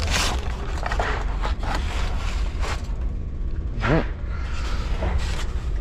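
Clinks, knocks and scrapes as a Belimo valve actuator is worked loose and lifted off its valve with a wrench, over a steady low hum. About four seconds in there is a short rising vocal sound.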